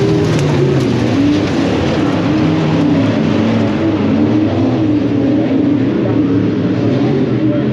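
Super stock dirt track race car's V8 engine running hard at racing pace, heard from inside the cockpit. Its pitch rises and falls through the laps over a constant rush of road and wind noise.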